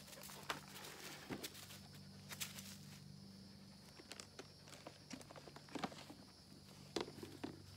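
Faint, scattered footsteps and light knocks, loudest twice in the second half, over a low steady hum.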